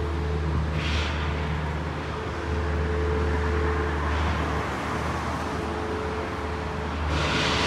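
Urban road traffic: a steady low hum with cars passing on the road. The tyre noise swells briefly a few times, loudest near the end.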